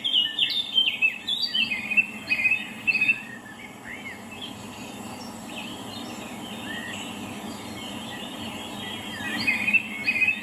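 Birds chirping and twittering: a dense flurry of short calls in the first three seconds and again near the end, with only scattered calls in between. A steady low background noise runs underneath.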